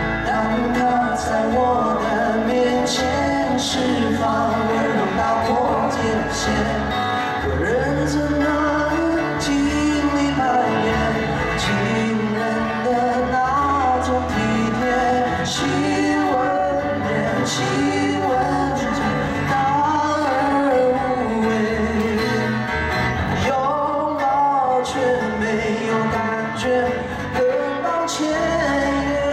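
Live song: male voices singing a melody over strummed acoustic guitars, amplified through a PA.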